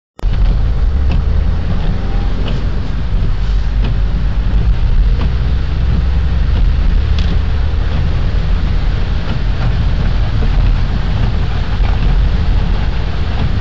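A taxi's engine and tyre noise heard from inside the moving cab: a steady low rumble under an even hiss, with a few faint clicks.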